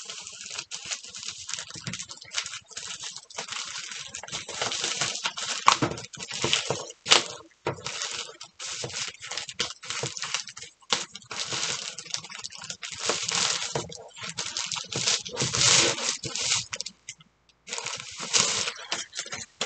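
Plastic postal mailer bag crinkling and rustling in irregular crackles as it is opened by hand and a cardboard box is pulled out of it, with a brief lull near the end.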